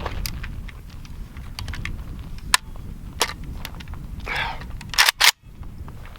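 Sharp metallic clicks from a rifle being handled and readied, with two loud clacks close together about five seconds in, over a steady low rumble.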